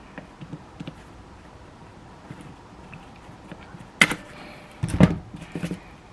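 Hand tools clicking and scraping against metal while a broken caliper bolt stub is worked out of its guide pin, with a few sharper metal knocks about four and five seconds in.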